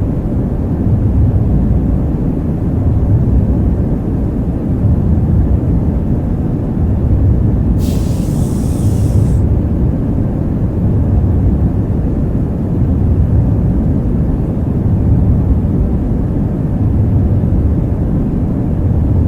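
Halcyon starship cabin-window ambience: a steady low engine rumble that swells and eases slowly, like a ship's drive. About eight seconds in, a short hiss lasts a second and a half.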